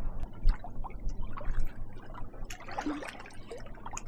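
Water lapping and splashing in small irregular strokes, over a steady low rumble of wind on the microphone.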